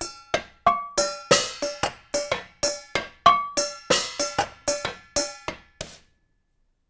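Metal objects struck in a quick rhythm, about four strikes a second, each hit ringing with a clear pitch from middle to high. The playing stops about six seconds in.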